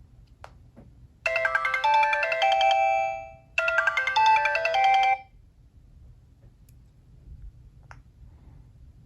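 Sony Ericsson W950i ringtone: a bright polyphonic melody played as two short phrases, the first starting about a second in and the second just after the middle, each stopping abruptly. A few light clicks come before the melody and once near the end.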